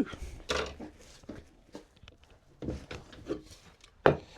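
Wooden workpieces and hand tools being handled on a workbench: scattered rubs and light knocks, with a sharper wooden knock about four seconds in.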